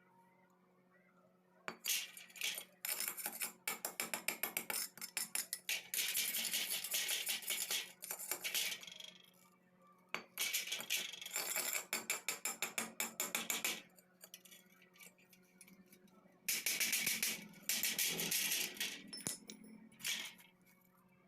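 Stick (arc) welding on thin square steel tube: the arc crackling and sizzling in three bursts of several seconds each, with short pauses between them.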